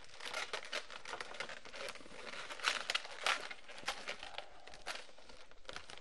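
Inflated latex 260 twisting balloons rubbing against each other and the hands as they are folded back and twisted, a run of quick irregular scrapes and crinkles, loudest around the middle.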